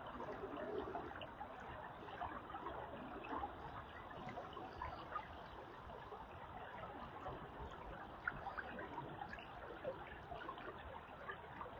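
Creek water flowing with a steady trickle and babble of many small splashes.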